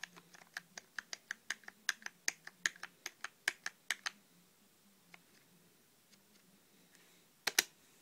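Keys of a computer keyboard pressed in a quick run of sharp clicks, about five a second, for some four seconds, then two quick presses near the end.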